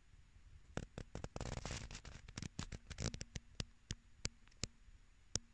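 A cat close against a pillow and face makes a brief rustle and a run of sharp little clicks, the clicks spacing out and slowing toward the end.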